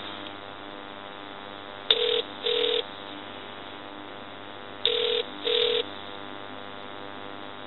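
Telephone ringback heard over the phone line as the call is transferred: pairs of short ring tones, a pair about every three seconds, meaning the called extension is ringing. A steady line hum runs under them.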